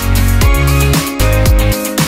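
Background music with a steady electronic beat and heavy bass.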